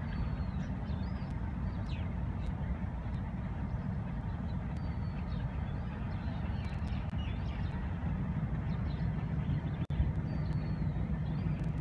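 Low rumble of an approaching HBU-20 diesel locomotive still some way off. A steadier engine hum comes up in the last few seconds, and there are small birds chirping and a brief dropout about ten seconds in.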